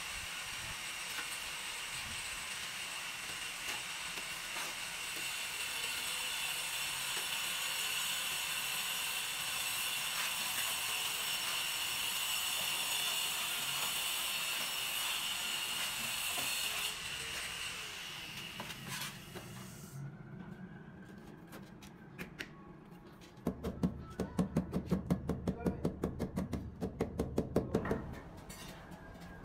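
Tile-setting work with hand tools: a steady hiss for the first half, then, after a quieter spell, a quick run of taps, about four or five a second, lasting some four seconds near the end.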